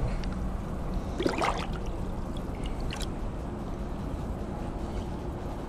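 Shallow water sloshing and gurgling around a submerged camera, heard muffled and steady, with brief splashes about a second in and again near three seconds.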